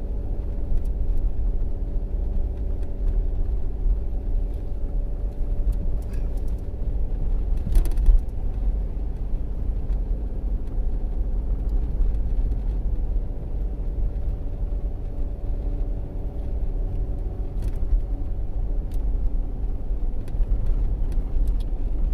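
A two-wheel-drive van on snow tyres driving up a snowy road: the engine runs steadily under a low road rumble. There is a single short knock about eight seconds in.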